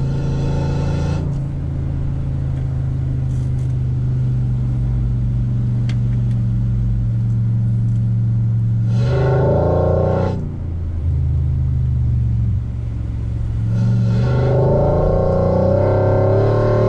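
A motor vehicle's engine running steadily, revving up twice, with a brief dip in level after each rise.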